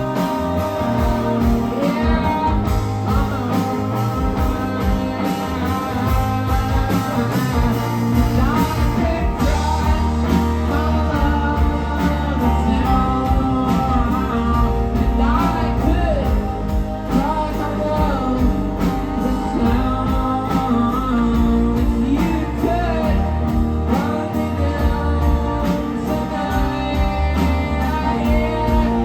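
Live rock band playing loud and steady: electric guitars and a driving drum beat, with a bending lead line and vocals over it.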